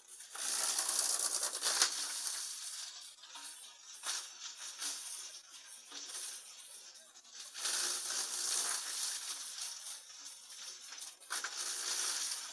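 Drum wood chipper shredding wood into chips: three bursts of crackling and crunching, the first near the start, one in the middle and one near the end, with a quieter rattle between them.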